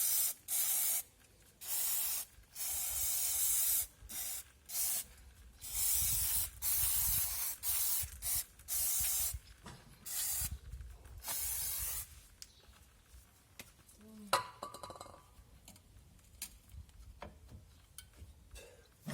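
Aerosol cleaner sprayed in about a dozen short hissing bursts onto a drum brake assembly during cleaning, followed by a few faint clicks and taps as the spraying stops.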